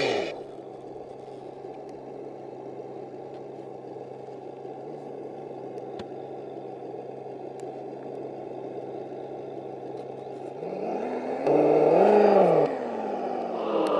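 Radio-controlled pickup truck pulling a weighted pulling sled over gravel: a steady low hum with a gritty noise under it. About 11 seconds in it revs up and back down, and it starts to rev again near the end.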